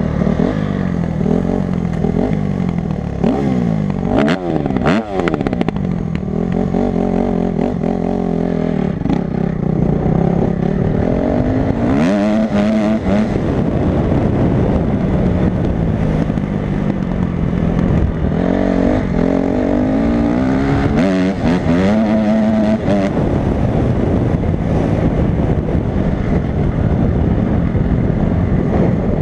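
Honda CRF250 dirt bike engine revving up and down as it is ridden across rough grass, its pitch repeatedly rising and falling with the throttle and gear changes. A few sharp knocks and rattles come in a cluster several seconds in, and again about twelve seconds in.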